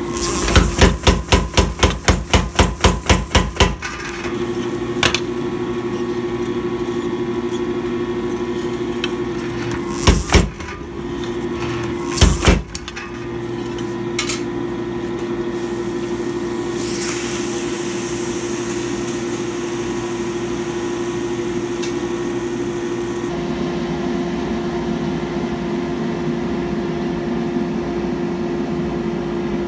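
Power hammer striking a red-hot steel plate on a texturing die: a quick, even run of about fifteen blows at roughly four a second, then the machine's motor running steadily, with two more short bursts of heavy blows about ten and twelve seconds in.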